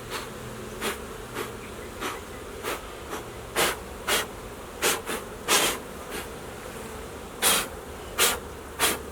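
Honeybees buzzing around an open hive, over about a dozen short, irregular whooshes as the bees are cleared off a full honey frame.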